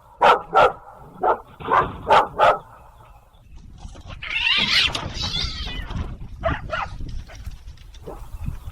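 A dog barking: six sharp barks in the first two and a half seconds, then a rushing, hissing noise for about two seconds, then two more barks.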